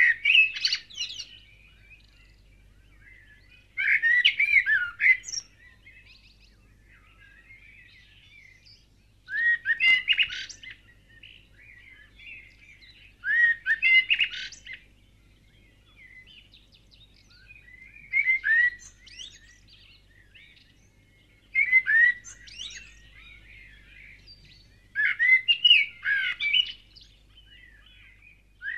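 A songbird singing short phrases of quick rising and falling notes, each about a second long and repeated every three to five seconds, about eight times, with quiet between.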